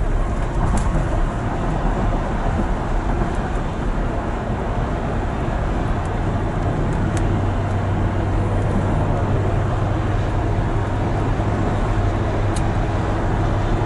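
Steady road and engine noise of a vehicle driving along at speed while towing a trailer, with a low steady drone that grows stronger about halfway through.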